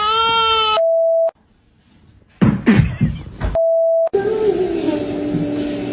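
A long, held wailing cry that is cut off sharply by a steady electronic beep. After a pause, a short noisy burst and a second identical beep follow, then a held tone over noise.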